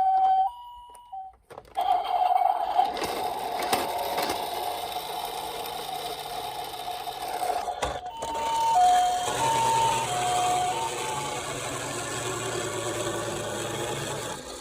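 Japanese ambulance two-tone siren, its high and low notes alternating in the "pee-po" pattern, from toy minicar emergency vehicles. A few seconds in it gives way to a steady single siren tone over a rattling, rumbling haze. About halfway through the two-tone alternation comes back and runs on.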